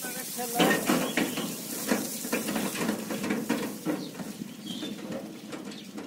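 Irregular metallic clattering and rattling from a sheet-metal wheat thresher as it is pushed by hand over stubble, with dry crunching mixed in.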